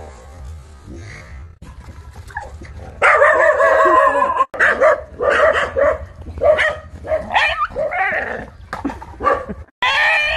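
A dog yelping and whining, faint at first, then a loud, rapid run of short calls that rise and fall in pitch from about three seconds in.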